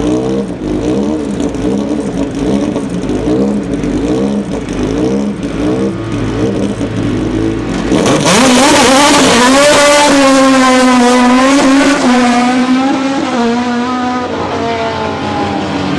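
Single-seater racing car engine revved in regular blips while held on the start line, then launching about halfway through at full throttle. It climbs in pitch through several quick upshifts as it pulls away, and the sound fades near the end.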